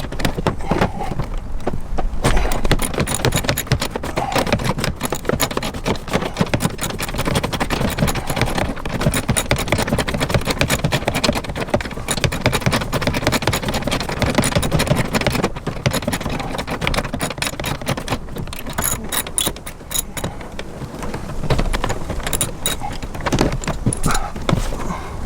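Socket ratchet clicking in long runs as a seat-belt anchor bolt is worked loose, mixed with metallic clinking and handling noise.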